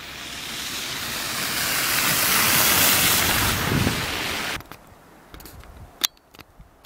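A car passing close by, its tyre and road noise swelling to a peak over about three seconds, then cut off abruptly. After that there is only a quiet outdoor background with one sharp click.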